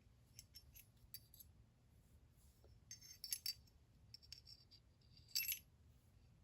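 Faint clicks and clinks of small steel parts as a new firing pin is fitted into an MK18 bolt carrier group, with a brief metallic scrape about five seconds in.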